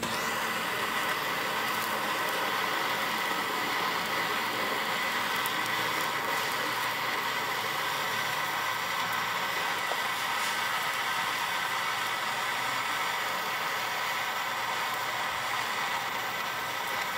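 Blowtorch flame running steadily, a continuous even hiss, as it burns popcorn kernels.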